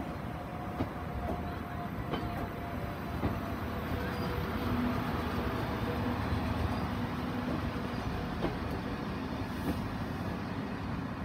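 A pair of Class 377 Electrostar electric multiple units rolling slowly along the platform: a steady rumble with a faint hum and a few light clicks from the wheels.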